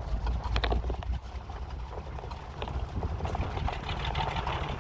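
Chevy S10 Blazer crawling over a rough dirt trail: a low engine rumble with irregular rattling and knocking from the body and suspension as it goes over bumps.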